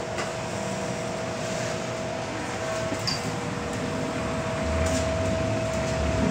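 MTR M-train electric multiple unit heard from inside the car as it pulls out of the station and starts to gather speed: a steady hum with two fixed tones over running noise that slowly grows louder, with a low rumble joining about four and a half seconds in.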